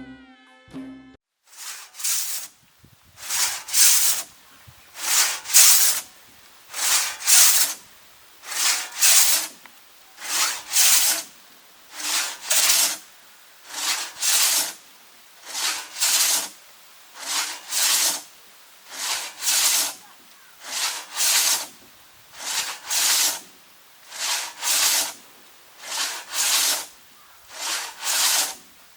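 Rhythmic rasping, scraping strokes, about one every second and a half to two seconds, many of them doubled like a to-and-fro stroke, with a short gap after each.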